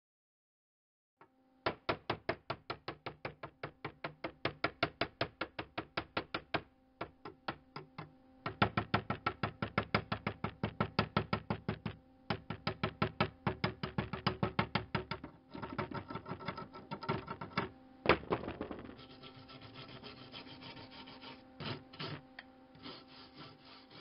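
A hammer tapping rapidly along fresh weld beads on a steel bar, chipping off slag: even metal-on-metal knocks about five a second, in runs with short pauses. Later the strikes turn into rougher, denser scraping and knocking, with one harder knock about three quarters of the way through.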